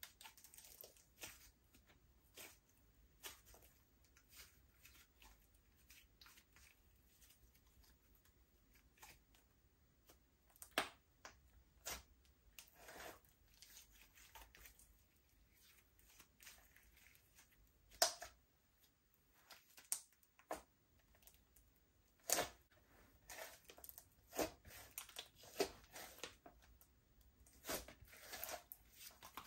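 Slime being mixed, giving faint sticky pops and crackles at irregular intervals, with a few louder snaps.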